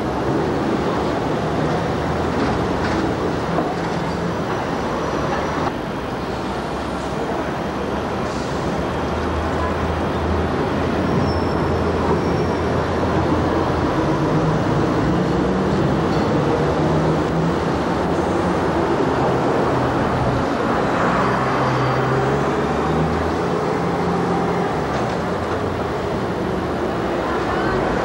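Busy street traffic with double-deck trams and double-deck buses passing: a steady mix of traffic noise, and a vehicle engine's hum that rises and falls through the middle stretch.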